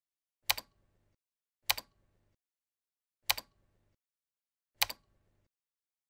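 Four sharp computer mouse clicks, evenly spaced about a second and a half apart. Each is a press followed closely by a softer release.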